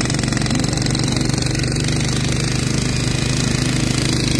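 Handheld electric breaker hammering steadily into the ground, breaking out a fence post hole, with a rapid, even rhythm of blows over the motor's hum.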